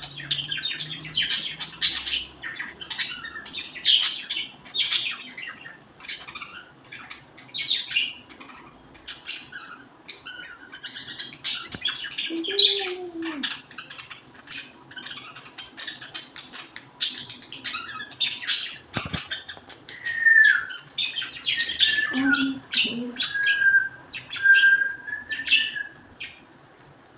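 Birds chirping and calling continuously in quick short notes. From about twenty seconds in, a whistled call repeats several times, some of the calls dropping in pitch.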